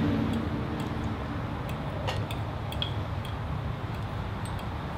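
Steady low background rumble, with scattered faint clicks and ticks of eating: chewing mouth sounds and a fork on a plate, one small ringing tick near the end.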